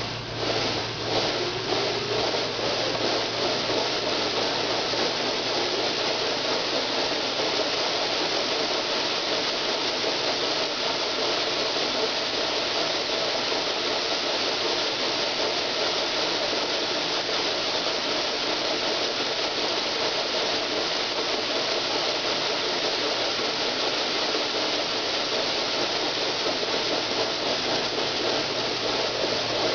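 PerMix plow mixer running, its plow arms churning white granules that spray against the clear drum, a steady dense rattling rush. A few separate clicks come in the first couple of seconds, then it runs evenly.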